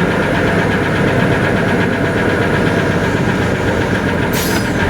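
An engine running steadily with a fast, even pulse, and a short hiss near the end.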